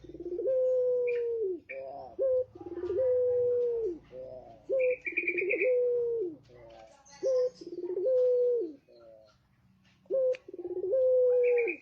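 Male puter pelung (Barbary dove) cooing: five long drawn-out coos, each opened by a short note and held steady before dropping off at the end, repeating about every two and a half seconds.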